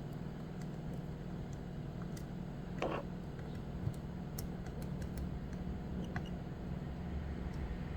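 Scattered small clicks and a short scrape of a lock pick and tensioner working the sliders inside an FTH Thirard Surveyor pump lock, over a steady low hum.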